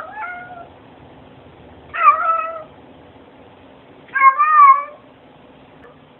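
Domestic cat meowing three times, about two seconds apart, each meow bending in pitch; the third is the longest.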